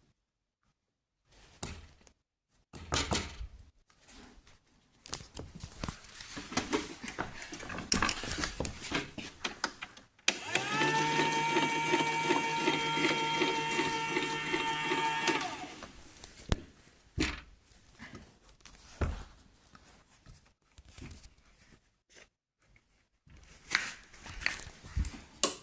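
Clicks and knocks of a toy washing machine being handled. Then its small electric motor starts suddenly and whirs steadily for about five seconds before winding down, followed by more clicks.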